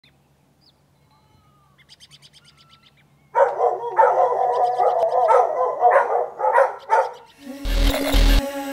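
Dogs barking in a rapid run of loud barks, about two a second, starting a few seconds in and stopping about a second before the end. A deep low thump follows near the end.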